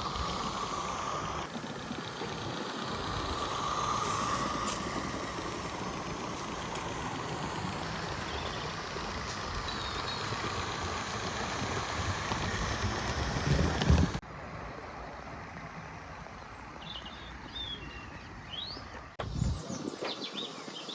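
Roundhouse 32mm live steam locomotive running: a steady hiss and rumble of steam and running gear. The sound changes abruptly about 14 seconds in and again about 19 seconds in.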